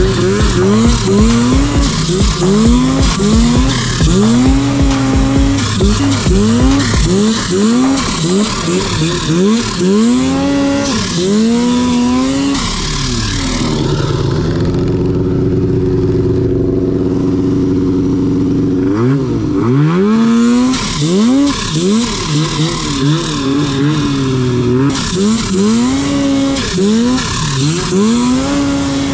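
Snowmobile engine revving up and dropping off again and again, roughly once a second. Partway through it holds a steady note for several seconds, then the revving resumes.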